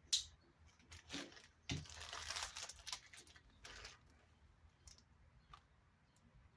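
Crinkling and rustling of small-parts packaging as a clutch master cylinder rebuild kit is handled. A sharp click comes just after the start, then several spells of rustling over the next three seconds, and a few light clicks near the end.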